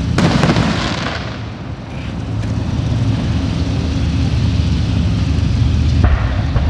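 Aerial fireworks shells bursting: a sharp bang just after the start trails off in a hissing crackle over about a second, a low rumble lingers, and another bang comes about six seconds in.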